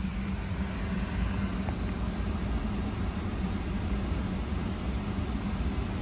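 Steady, even rush of air with a low hum under it, from the Tesla Model Y's cabin climate-control fan.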